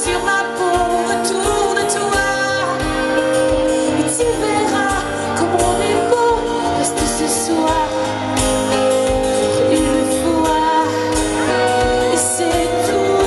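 Live pop-rock song from a concert stage: a female singer's lead vocal over a full band, with held chords and a steady drum beat.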